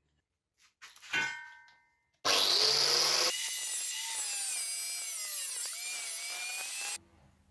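Angle grinder with a cut-off disc, mounted in a homemade stand, starts suddenly about two seconds in and cuts through a small metal channel, its pitch wavering as the disc bites. A short ringing clink comes before it. The grinding stops abruptly near the end.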